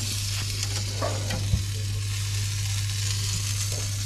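Meat sizzling in an open cabinet smoker, a steady hiss, over a low steady hum. A single short knock sounds about one and a half seconds in.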